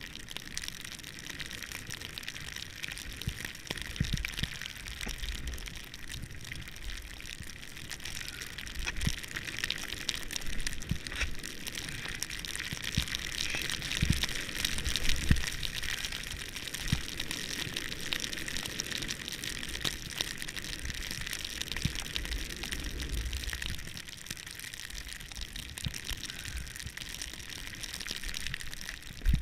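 Snowboard riding through fresh powder: a steady hiss of snow under the board, loudest midway. Underneath, wind rumbles and buffets on the microphone with scattered thumps, dropping away near the end.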